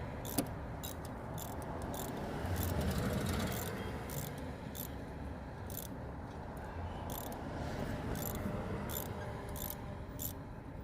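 Hand socket ratchet clicking in short bursts, stroke after stroke, as spark plugs are turned out or in by hand, with one sharper click about half a second in.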